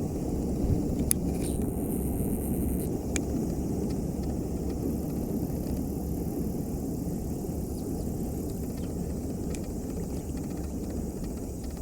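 Steady low rumbling outdoor background noise with a few faint clicks.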